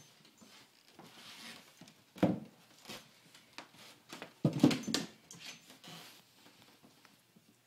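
Miniature Schnauzer puppy playing: faint scuffling and clicks, with two louder knocks, one about two seconds in and a longer one about four and a half seconds in.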